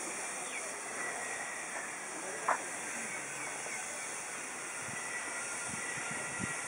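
Steady outdoor hiss of open-air ambience, broken about two and a half seconds in by one short sharp chirp or click, with a few low thuds near the end.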